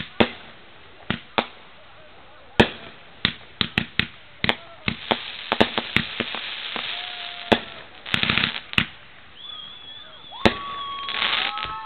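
Fireworks going off: irregular sharp bangs, some in quick clusters, with a dense crackling stretch about eight seconds in and a few thin whistling tones near the end.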